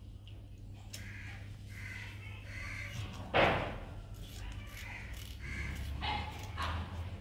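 Crows cawing repeatedly in the background while scissors snip through fish fins with faint clicks. A sudden loud thud stands out a little over three seconds in.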